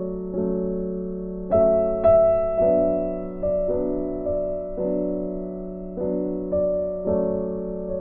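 Background music: slow, gentle piano, single notes and chords struck every half-second to second and left to ring and fade.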